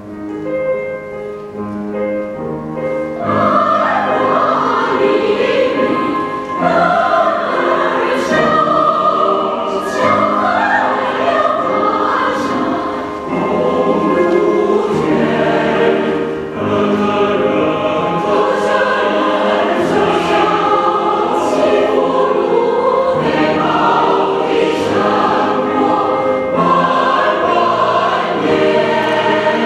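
Mixed choir of women's and men's voices singing a Chinese folk-song arrangement in parts, beginning softly and swelling to full voice about three seconds in.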